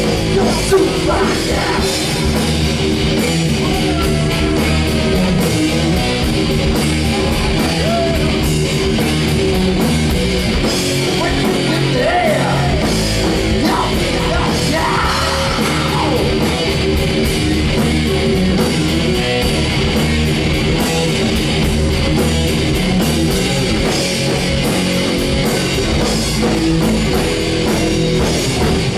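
Live hard rock band playing loud: distorted electric guitar, bass guitar and drum kit, with a singer's vocals over them.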